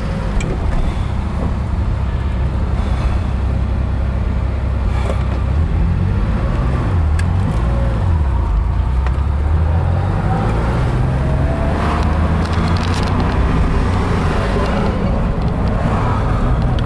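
1979 Porsche 911 SC's air-cooled 3.0-litre flat-six running under way, heard from inside the cabin, its pitch dropping and then climbing again about seven to eight seconds in at a gear change, then rising steadily as the car gathers speed.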